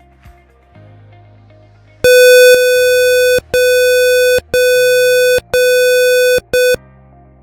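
Simulated panic-alarm buzzer driven by a 555 timer, sounding a harsh, steady electronic beep in four bursts of about a second each with short gaps, then a brief fifth, starting about two seconds in, when the push button is pressed.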